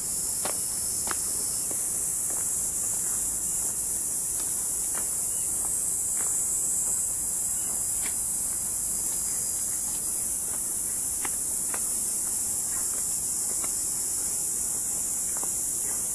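Steady, high-pitched chorus of insects, with faint footsteps ticking at irregular intervals beneath it.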